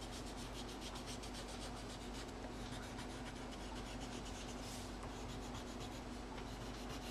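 Coloured pencil scratching across paper in quick back-and-forth shading strokes, several a second, over a steady low hum.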